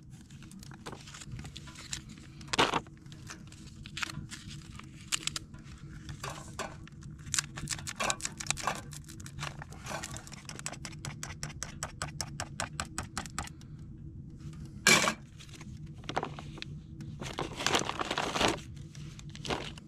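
Foil MRE food pouches being torn open and crinkled by hand: a long run of small irregular crackles and rustles, with louder crinkling bursts about fifteen seconds in and again near the end.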